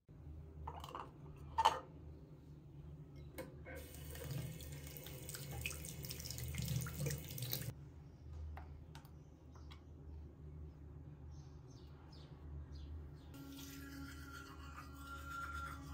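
A bathroom sink tap runs for about four seconds and shuts off abruptly. Light plastic clicks and taps come before and after it as a toothbrush is pushed into a wall-mounted toothpaste dispenser. Water starts running again near the end.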